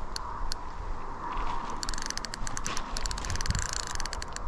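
Fishing reel clicking while a hooked fish is played: a few single clicks, then a fast run of ticks for about two and a half seconds from just under two seconds in.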